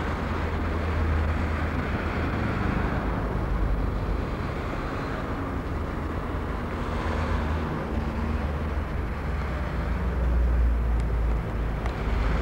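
Steady low rumble of a car driving: engine and road noise, with a faint engine hum, growing a little louder near the end.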